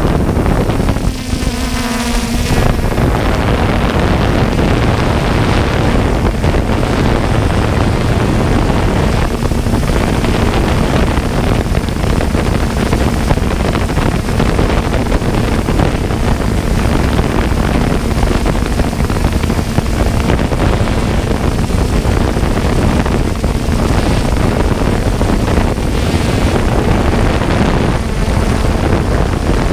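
Small camera drone's propellers and motors running in flight, heard from the drone's own onboard camera: a loud, steady whirring hum with a faint steady tone, mixed with wind buffeting the microphone.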